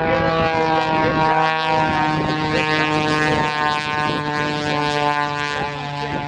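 Pitts S-2S aerobatic biplane passing overhead, its piston engine and propeller making a loud, steady drone that drops slightly in pitch about five and a half seconds in.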